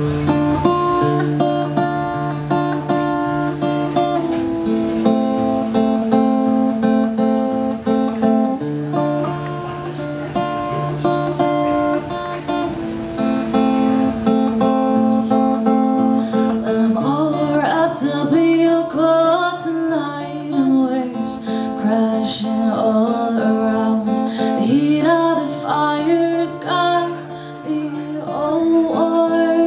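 Acoustic guitar strummed in a repeating chord pattern; a woman starts singing over it a little past halfway through.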